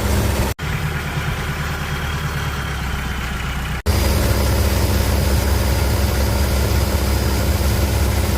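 Longtail boat engine running steadily, a loud low drone. It drops out for an instant twice, under a second in and again about four seconds in.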